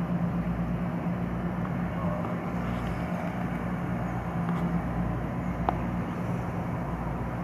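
Metro-North M7 electric multiple-unit train rolling past: a steady rumble of wheels on rail with a low hum underneath. A brief sharp squeak comes about five and a half seconds in.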